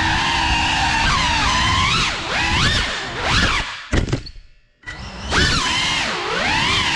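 Motors and propellers of a Cinelog35 3.5-inch cinewhoop FPV drone whining, the pitch rising and falling with the throttle. About four seconds in the whine drops almost to nothing for under a second, then climbs back up.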